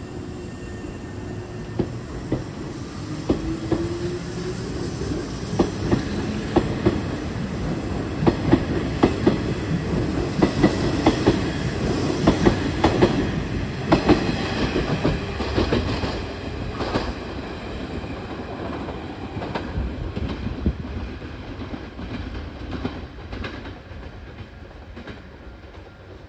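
A Nishitetsu 5000 series six-car electric train pulls away and accelerates past. Its wheels click over the rail joints faster and louder as it gathers speed, then the sound fades as the last cars leave.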